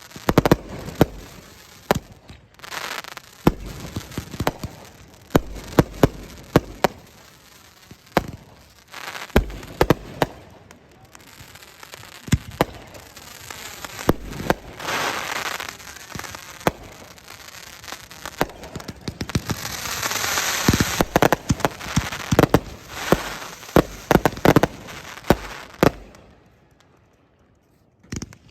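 Fireworks going off in quick succession: many sharp bangs, with stretches of dense crackling and hiss about halfway through and again later, then dying away near the end.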